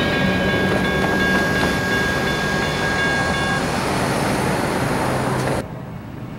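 Railroad crossing signal's bell ringing over the loud noise of a passing train. The bell stops about three and a half seconds in as the flashing lights shut off. The train noise cuts off suddenly near the end.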